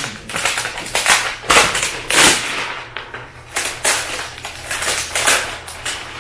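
Packaging of a new tablet crinkling and crackling in quick irregular bursts as it is pulled open by hand.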